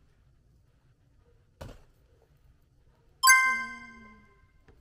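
A bright chime sound effect, a single ding with ringing overtones, sounds about three seconds in and fades over about a second and a half. It is edited in to go with an on-screen counter sticker. Before it there is one short click.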